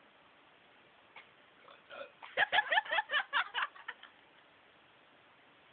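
A person's long belch, about two seconds, that breaks into a quick run of pulses, about seven a second, after a couple of short lead-in sounds.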